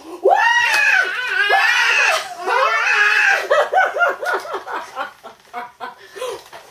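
A woman and a toddler squeal and laugh in play: a long, very high-pitched squeal that rises and falls, then a run of quick laughter that fades away.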